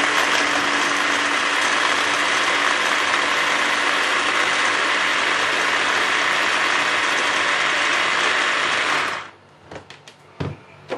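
Tefal electric mini chopper motor running steadily, its blades chopping shallots in the bowl. It cuts off suddenly about nine seconds in, followed by a few light knocks.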